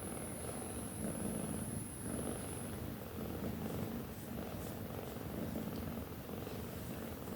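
Domestic cat purring while nursing, a steady low rumble that swells and eases about every second and a quarter with its breathing.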